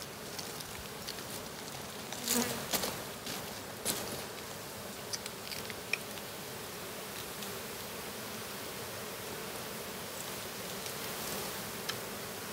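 Honeybees buzzing steadily around the hive entrances as they come out and beard on the hive fronts after the heat treatment. A few short clicks and rustles between about two and six seconds in come from the hives being handled.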